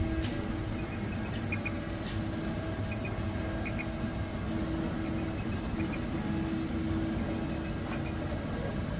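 3D printers running: the stepper motors whine in short tones that start, stop and change pitch with each move, over a steady hum, with small repeated paired ticks. Two sharp clicks come in the first couple of seconds.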